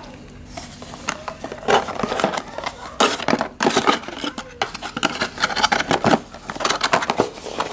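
Cardboard packaging rustling and scraping as hands pull packing out of a cardboard box, in a string of short, sharp crinkling strokes.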